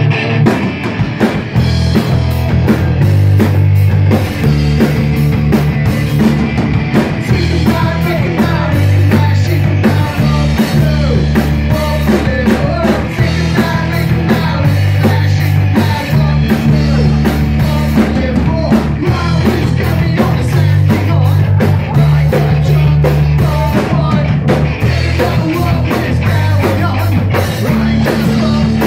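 A rock band playing live and loud, heard from the audience. The drums hit steadily throughout, and guitar and bass chords change every second or two.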